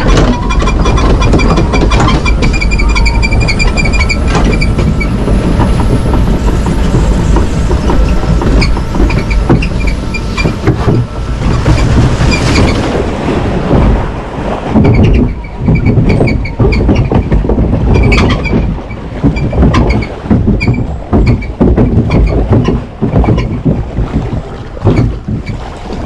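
Mack Rides log flume ride running, heard from inside the boat: a steady mechanical rumble with a fast, even ticking for the first half, turning into an uneven, gusty rush of noise from about 14 seconds in.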